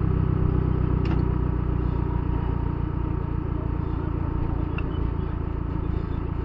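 Off-road vehicle engine running steadily at a constant speed, with a couple of brief clicks.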